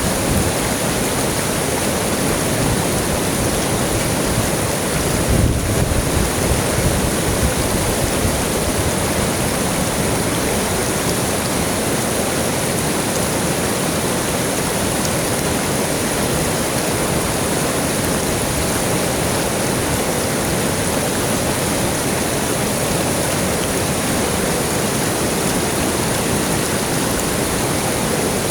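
River water flowing steadily, an even wash of water noise with a brief swell in the low end about five seconds in.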